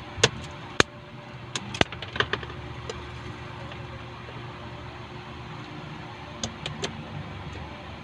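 Sharp clicks and snips of a hand wire stripper closing on a wire to strip its insulation mid-run, several in the first few seconds and a few more near the end. A steady low hum runs underneath.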